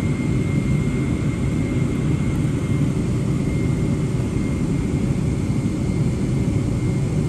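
Jet engines of a Boeing 787-9 airliner running, a steady low rumble with a thin, constant high whine above it.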